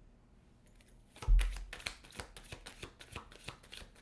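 About a second of quiet, then a low thump and a tarot deck being shuffled by hand: a quick, irregular run of card clicks.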